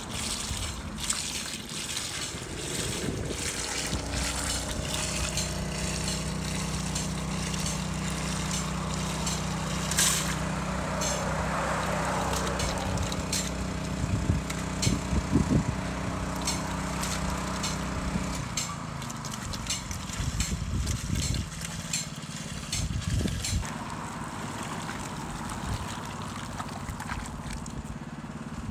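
Small engine of a sealcoat tank-and-pump rig running steadily while liquid sealer is pumped through a hose wand into a bucket. Its steady hum drops away about two-thirds of the way through.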